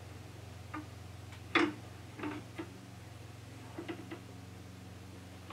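A few light metallic clicks and knocks as a sharpening jig and gouge are handled and set on a wet stone grinder's steel support bar, the loudest about one and a half seconds in, over a steady low hum.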